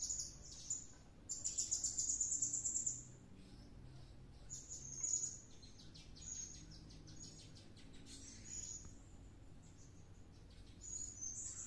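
Blue-crowned hanging parrot (serindit) giving shrill, high-pitched calls. A rapid chattering trill lasts about two seconds, starting about a second in, followed by shorter chirps every second or two.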